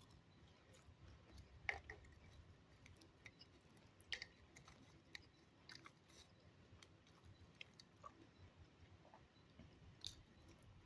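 Faint close-up eating sounds: a mouth chewing omelette, with small wet clicks and smacks, two of them louder about two and four seconds in.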